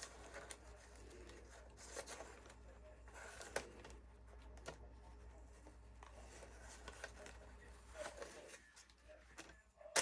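Faint rustling and light taps of hands handling flowers and flower-press parts, over a low steady room hum, with a sharper click near the end.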